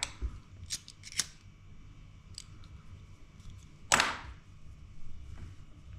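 Small clicks and taps from hands handling fishing tackle and tools on a hard countertop, with one louder, longer noise about four seconds in.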